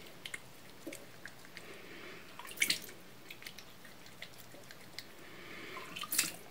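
Faint wet squishing and small clicking as fingertips rub a gritty facial exfoliating scrub over the skin. Two short louder rubbing noises come about two and a half seconds in and again near the end.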